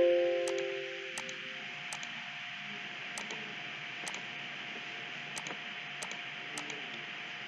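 Computer mouse clicks, spaced irregularly about once a second, over a steady recording hiss with a faint constant whine. At the very start a short computer alert chime of several tones sounds and fades away over about a second.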